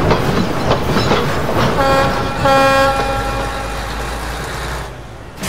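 Steam locomotive running with a rhythmic clicking of wheels over the rail joints, giving two short whistle toots about two seconds in; the running sound drops away near the end.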